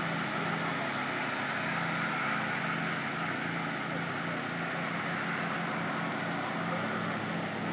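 Riding lawnmower engines running steadily, a continuous even drone with no revving or breaks.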